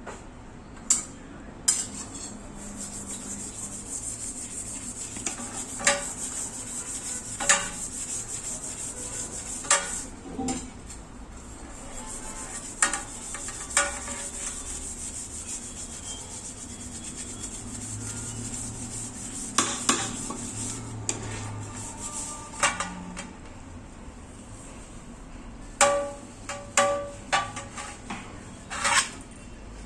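Spoon stirring and scraping in a cooking pot, with scattered sharp clinks and knocks against the pot over a steady high hiss.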